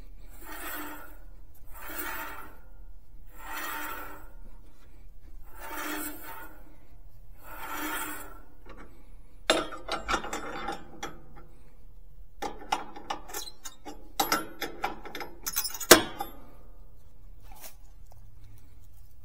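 A band sawmill's blade and band wheel being worked by hand during a blade change. About five slow rasping, rubbing strokes come every second and a half or so, then a run of sharp metallic clicks and clanks, the loudest near the end.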